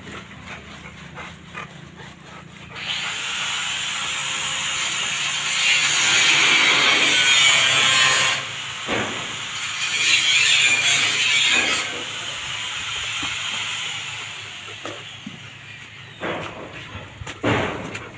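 Hands scrubbing shampoo lather into a wet Rottweiler's coat, a loud wet rubbing hiss that comes and goes with the strokes. A few short knocks come near the end.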